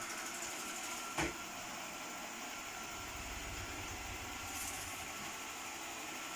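Xiaomi E10 robot vacuum running with a steady whirr, with a single sharp knock about a second in.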